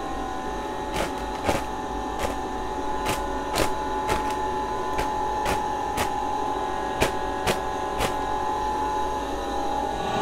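Steady machine hum with two held tones, overlaid by a dozen or so sharp, irregular clicks and crackles of plastic mushroom grow bags being handled and slit open.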